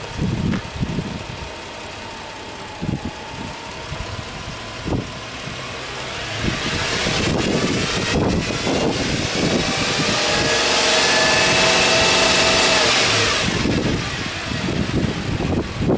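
Subaru Legacy B4 3.0R's EZ30 3.0-litre flat-six running at idle, then revved up gradually in a free rev from about six seconds in. The revs are held high for a few seconds and fall back to idle with about two seconds left.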